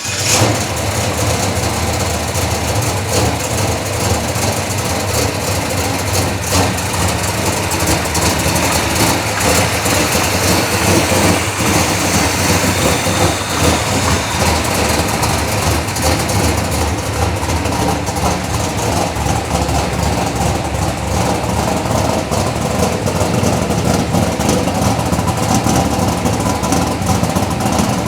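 Chevrolet Chevelle big-block V8 running loud and steady at idle on a newly fitted Edelbrock Pro-Flo 4 electronic fuel injection that has not yet been fine-tuned.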